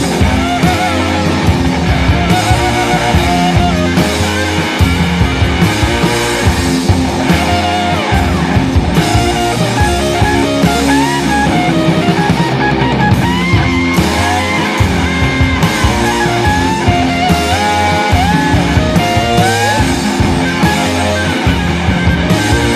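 Rock background music: an electric guitar plays a lead line with bending, sliding notes over a steady beat.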